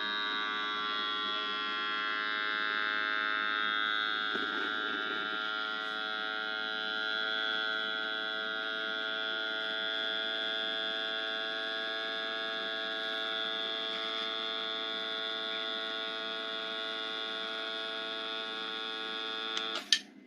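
Cordless electric mason-jar vacuum sealer running steadily as it pumps air out of a jar, then stopping abruptly with a click near the end.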